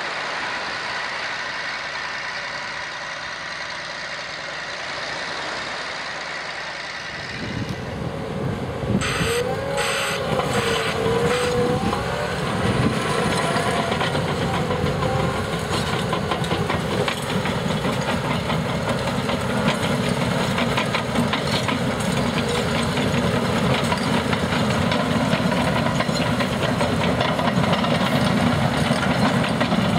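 Heavy construction machinery working: a steady mechanical hiss at first, then, after an abrupt change about seven seconds in, a louder low engine rumble with a wavering squeal and scattered clanks.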